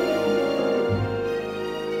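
Background instrumental music with long held notes and a low bass note about a second in.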